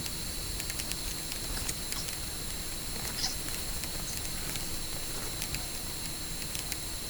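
Outdoor ambience: a steady hiss with a faint, steady high whine and scattered light ticks, like drops pattering.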